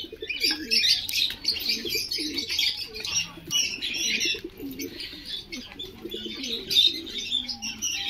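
Domestic pigeons cooing in a loft, over constant high chirping of many small birds.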